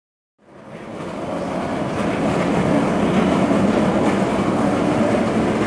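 Steady background din of a busy exhibition hall, fading in over the first second or two and then holding even.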